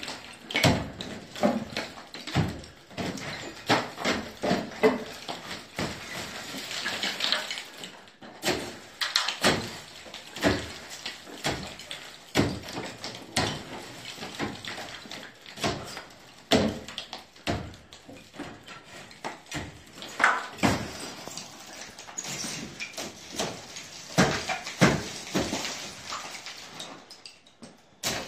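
Old ceiling plaster and lath being knocked down with a long-handled tool: irregular sharp knocks and scrapes, about one a second, with crumbling plaster and debris falling between the blows.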